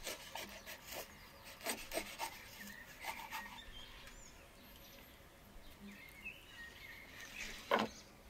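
A knife sawing through the crisp crust of a round tandoor-baked bread, making short irregular scraping, crackling strokes, with one louder stroke near the end.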